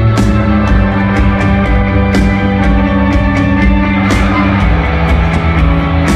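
Live rock band playing an instrumental passage without vocals: held guitar chords over bass and a drum kit, with cymbal strokes about two to three a second.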